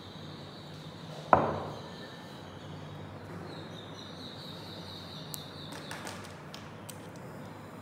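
A single sharp knock about a second in, over a steady high-pitched whine that stops about six seconds in.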